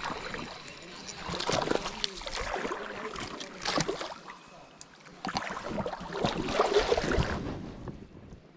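Wading through a shallow creek: irregular splashing and sloshing of water around the legs with each step, coming in several bursts and fading near the end.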